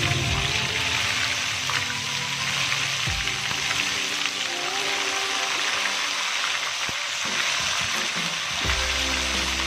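Chicken pieces deep-frying in a wok of hot oil: a steady sizzle, with background music underneath.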